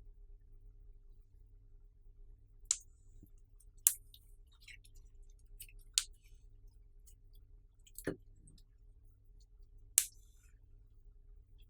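Slime and makeup being handled: five sharp clicks about two seconds apart, with fainter ticks between them, over a low steady hum.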